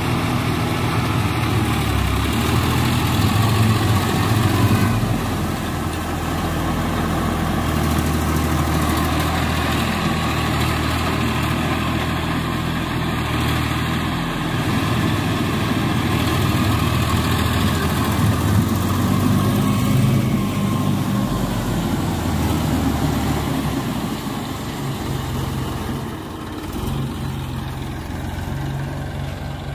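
Farm tractor's diesel engine running steadily under load as it pulls a rotavator through a flooded paddy field, with the churning of wet mud mixed in. The sound eases off a little near the end.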